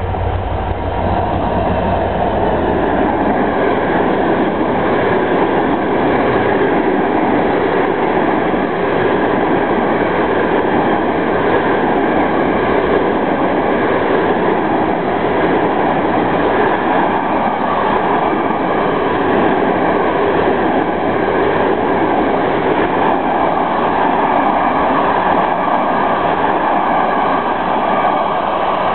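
A train rolling past, a loud, steady rumble of wheels on the rails with no let-up; a deep low rumble heard at the start drops away about three seconds in.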